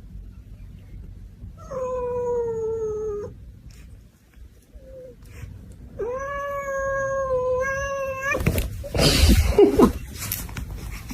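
A cat yowling: two long drawn-out calls, the second longer, followed by a loud harsh noisy outburst.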